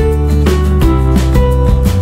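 Instrumental background music: a melody of changing notes over steady low bass tones.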